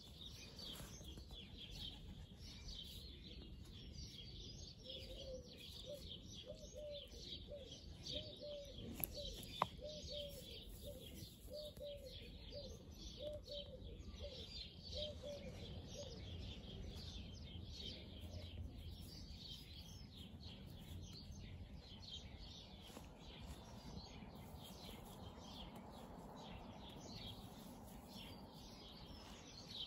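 Garden birds chirping and singing throughout, with a pigeon cooing a repeated low phrase from about five to sixteen seconds in. A couple of sharp clicks about nine seconds in.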